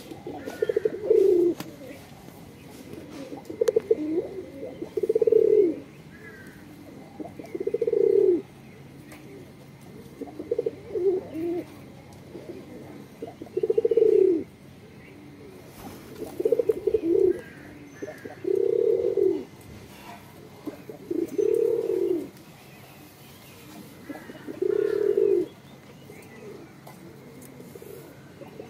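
Domestic pigeons and doves cooing: low, pulsing coos repeated about every two to three seconds.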